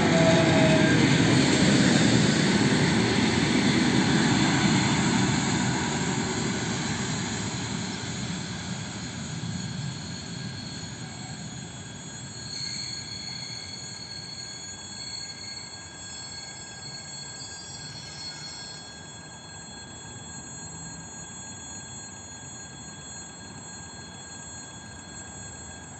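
Electric commuter train passing close and going away: at the start a motor whine falls in pitch over the rushing wheel-and-rail noise, and the whole sound fades over about ten seconds. From about twelve seconds in it is much fainter, with a few steady high tones from a train at a distance.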